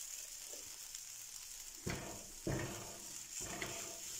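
Diced chicken and vegetables sizzling on low heat in a frying pan. About two seconds in come a few soft knocks and scrapes as diced tomato is tipped in and stirred with a wooden spoon.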